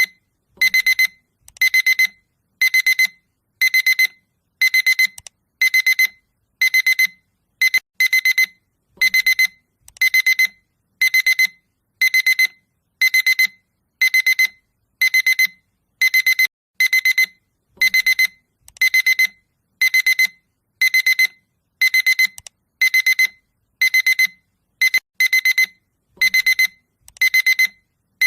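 Electronic alarm clock beeping a loud wake-up alarm: short groups of rapid, high-pitched beeps on one steady tone, repeating about one and a half times a second without a break.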